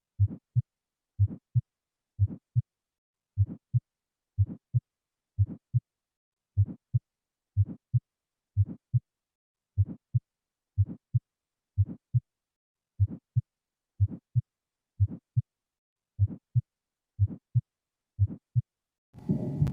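Recorded heart sounds for auscultation practice: a regular lub-dub, two short low thumps about once a second, with silence between beats. Shortly before the end the beats stop and a different, noisier recording cuts in.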